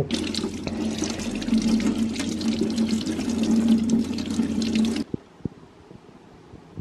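Tap water running into a sink, with a freshly cast brass ring held in the stream to rinse off the white investment plaster. The water cuts off suddenly about five seconds in.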